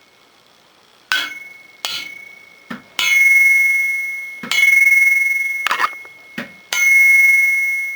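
Thin-walled stainless-steel Bosal exhaust section struck repeatedly, about eight knocks, ringing like a bell. The strikes about three, four and a half and seven seconds in are the loudest and ring on for more than a second with a clear high tone.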